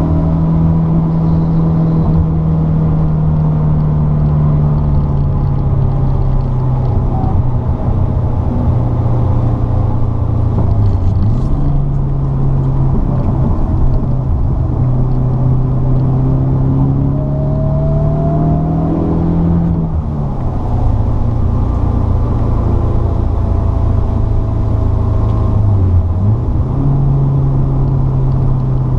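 Car engine under hard track driving, heard from inside the cabin, over steady tyre and road noise. Its note dips and climbs back three times: about a third of the way in, two-thirds in, and near the end.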